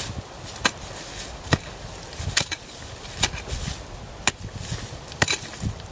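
Pickax swung repeatedly into the dirt and roots at the base of a large tree stump: about seven sharp blows, roughly one a second.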